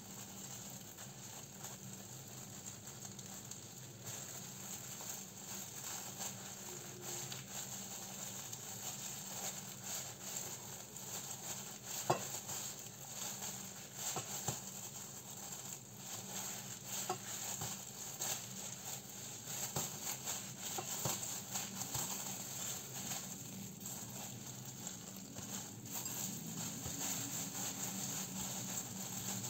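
Plastic-gloved hands handling sushi filling and rolling it in a bamboo mat: soft rustling and crinkling of the gloves with light clicks and taps from the mat. One sharper tap about twelve seconds in.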